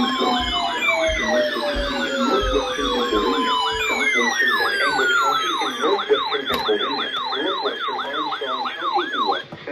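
Emergency vehicle siren on a fast yelp, about three up-and-down sweeps a second, with slower falling wails from a second siren winding down laid over it. It cuts off near the end.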